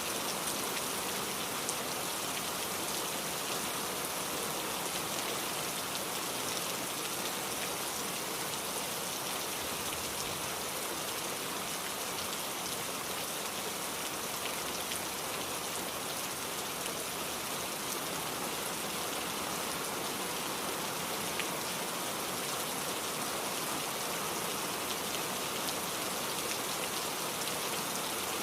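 Steady rain falling on a surface, an even hiss with fine drop patter throughout.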